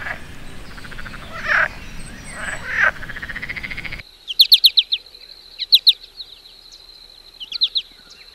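Animal calls. First, a rasping pulsed call that swells twice. Then, after a sudden change, three quick bursts of high chirps over a steady high whine.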